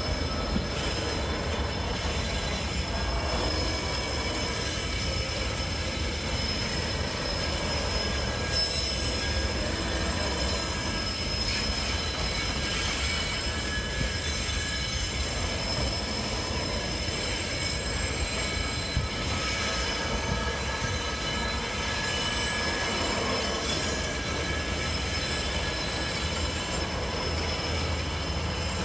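Cement freight train rolling slowly, its wheels squealing against the rails in several steady high tones over a constant low rumble.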